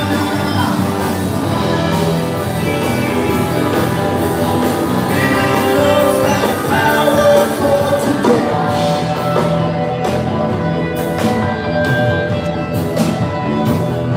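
Background rock-style music with a singing voice, playing steadily.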